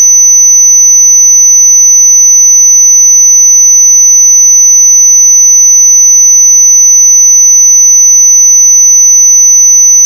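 Steady, very loud, high-pitched 6000 Hz sine test tone, one unchanging pitch that cuts off abruptly at the end.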